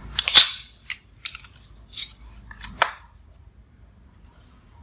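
Steel ruler and steel L-square being handled and laid on a drawing sheet: several sharp metallic clicks and taps, the loudest about half a second in, the last near three seconds.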